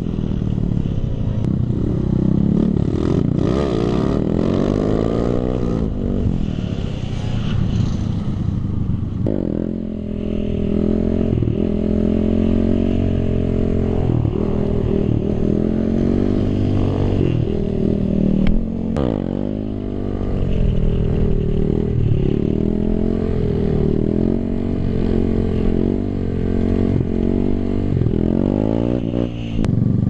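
Kawasaki KLX/D-Tracker's single-cylinder four-stroke engine being ridden, its revs rising and falling again and again, heard from on board the bike.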